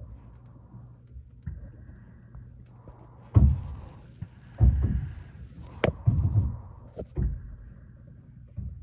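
Handling noise from a camera being moved about: rustling with about five dull thumps and one sharp click in the middle.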